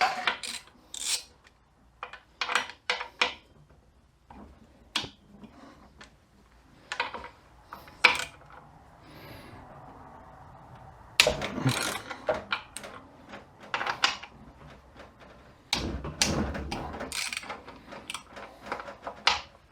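Hand tools clicking and clinking on metal as bolts are worked out of a 42RE automatic transmission's valve body: irregular sharp clicks and knocks, with two busier bursts about 11 and 16 seconds in.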